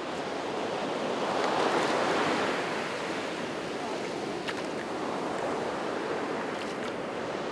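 Ocean surf breaking and shallow wash running up over the sand, swelling about two seconds in and then settling to a steady rush.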